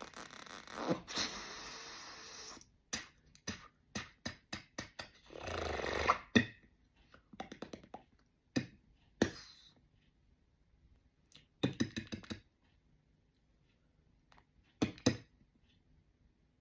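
Beatboxer's mouth sound effects imitating cartoon effects: a sustained hiss, then a quick run of sharp pops and clicks, a swelling rush of breath about six seconds in, and a few scattered pops later on.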